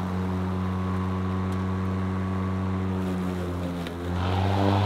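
EGO 56V Select Cut cordless lawn mower running, its motor and blades giving a steady whirring hum. It grows louder about four seconds in as the mower is pushed forward into the grass.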